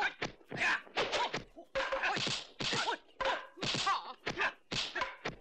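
Dubbed kung fu film fight sound effects: a rapid run of a dozen or so sharp whacks and thwacks of blows landing, with short grunts mixed in.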